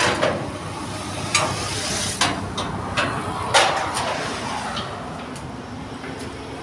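About eight sharp metallic clinks and knocks, the loudest at the very start and about three and a half seconds in, as a ratchet wheel strap and its steel wheel chock are handled on the perforated steel deck of a car-carrier trailer. A low steady hum runs underneath.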